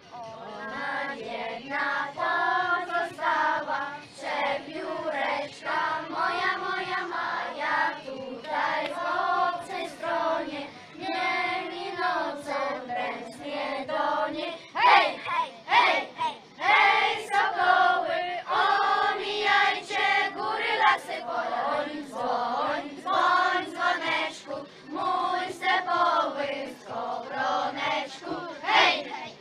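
A group of children singing together in chorus, a song in steady phrases.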